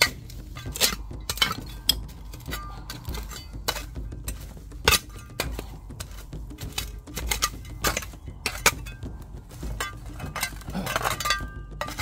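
Metal digging tool striking into stony, leaf-littered soil again and again at an irregular pace, each blow a sharp hit, some giving short ringing clinks as the blade meets glass shards and stones buried in the ground.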